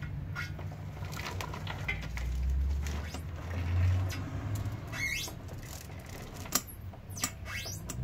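New 525 O-ring motorcycle chain rattling and clinking link by link as it is pulled around the rear sprocket, with scattered sharper clicks. A low rumble swells and fades about two to four seconds in.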